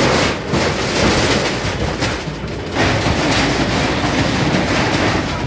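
A Sumitomo hydraulic excavator demolishes a corrugated-iron shop: its engine runs while the bucket crushes the tin roof and walls, with metal sheets clattering and crashing in a dense, continuous racket.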